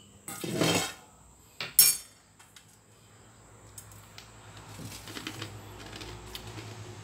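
Stainless steel bowl and utensil being handled on a wooden table: a short scraping noise just after the start, then a sharp metallic clink about two seconds in, the loudest sound.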